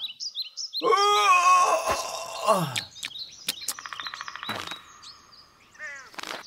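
Cartoon spring-forest sound effects: quick high bird chirps repeated several times, and in the middle a louder drawn-out call that falls in pitch. A few sharp clicks and a brief fast rattle follow, then more chirps near the end.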